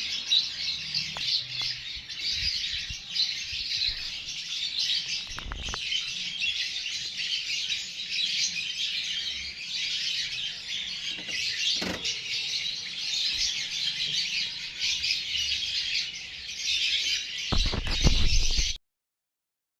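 A crowd of baby parrots chirping continuously in dense, high-pitched chatter, with a few low knocks, the loudest near the end. The sound cuts off abruptly.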